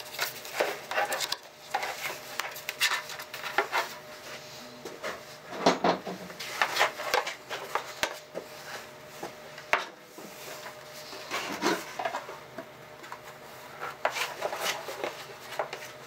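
Hard 3D-printed plastic armour pieces knocking, clicking and rubbing against each other as they are handled and fitted onto the body, in an irregular series of light clatters.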